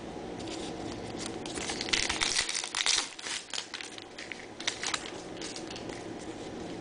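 Trading-card pack wrapper crinkling as it is handled, in crackly bursts about two seconds in and again around five seconds in.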